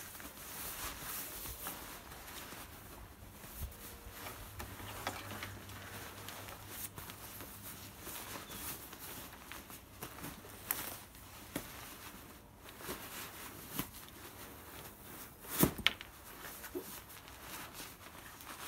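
Rustling and scuffing of nylon as a sleeping bag in a waterproof bag is forced into the tight bottom compartment of a rucksack, with scattered soft knocks and a couple of sharper thumps about three-quarters of the way through.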